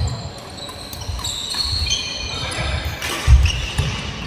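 Badminton doubles rally: players' shoes squeaking on the court floor and feet thudding in quick footwork. The loudest thud comes a little past three seconds in.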